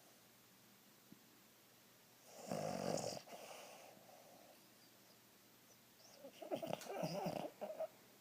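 Boston Terrier snoring in its sleep: one snore about two and a half seconds in, then a longer, ragged snore with wavering pitch near the end.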